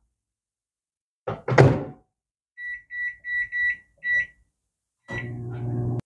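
Microwave oven door shut with a thunk, then about five short high beeps from its keypad as the 5-minute cooking time is entered and started. Near the end a steady low hum begins, the oven running.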